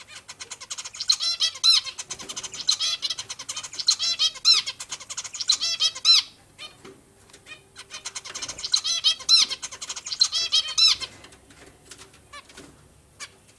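Zebra finches calling in rapid runs of short, nasal, many-toned notes: one long burst of about six seconds, a short pause, then a second burst of about three seconds that stops near eleven seconds in.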